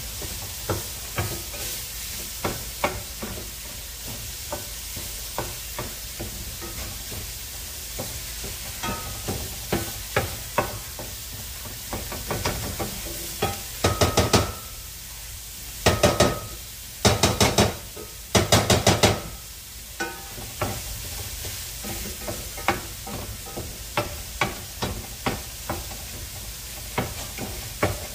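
Ground sausage sizzling in a stainless steel skillet while a nylon meat-chopper tool scrapes and taps against the pan, breaking up the meat. About halfway through there are several short bursts of rapid clattering.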